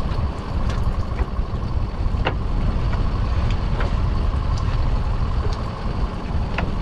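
Small boat's engine idling, a steady low rumble with a faint steady whine, under wind buffeting the microphone; two sharp knocks, about two seconds in and near the end.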